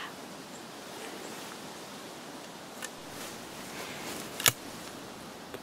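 Quiet woodland background with faint rustles, a small click near three seconds in, and one short, sharp snap about four and a half seconds in.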